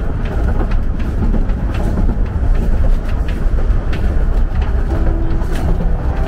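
Steady rumble of a moving narrow-gauge steam railway carriage heard from inside, with sharp clicks from the running gear now and then.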